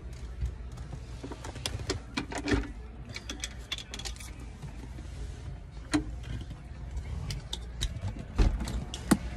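Scattered sharp clicks, knocks and jingling over a steady low car rumble, with a louder knock near the end.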